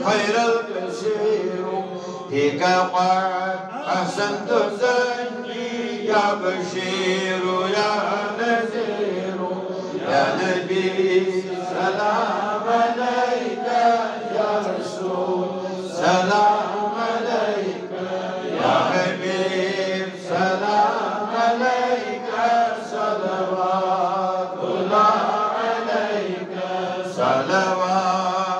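A man's voice chanting a devotional recitation, melodic and unbroken, with long held notes that rise and fall. A steady low tone runs beneath the voice.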